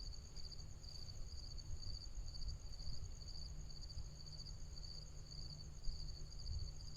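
Insects, likely crickets, chirping in a steady high chorus pulsing about twice a second, over a low rumble.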